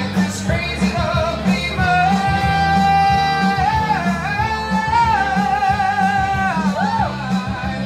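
A man singing into a microphone over loud amplified backing music, holding long notes with vibrato through the middle of the passage.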